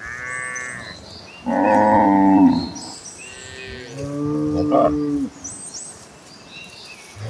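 Cattle mooing: three calls in turn. A higher call falls in pitch at the start, the loudest moo comes about a second and a half in, and a lower, longer moo follows around four seconds in.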